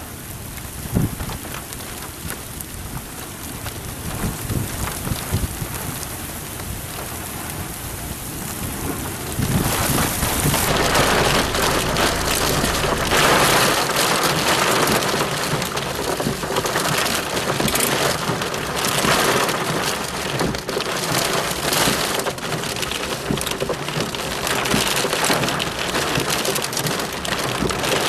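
Thunderstorm: a low thunder rumble under lighter rain at first, then the rain suddenly turns much heavier about ten seconds in and keeps pouring hard as the rumble dies away.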